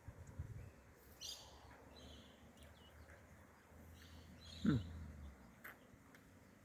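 Birds calling faintly, short high chirps repeating every second or so. About two-thirds of the way in there is a brief low sound that falls in pitch.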